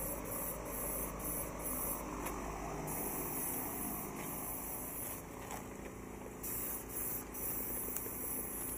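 Compressed-air paint spray gun hissing in repeated bursts as its trigger is pulled and released, with short gaps between sprays.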